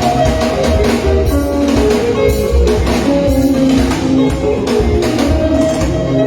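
Live band playing sungura music at a sound check: interlocking guitar lines over a steady pulsing bass and drum kit.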